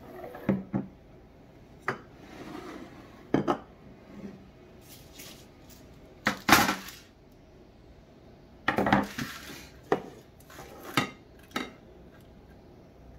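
Kitchenware being moved and set down on a granite countertop (ceramic bowls, metal tongs, a foil-lined baking pan): a dozen or so scattered knocks and clinks with short pauses between them. The loudest comes about six and a half seconds in, with a cluster around nine seconds.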